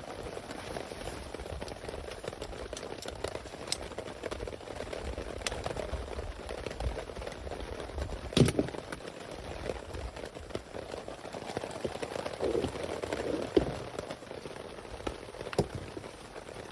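Steady rain falling, with irregular sharp taps of drops or knocks scattered through it, the loudest about halfway through.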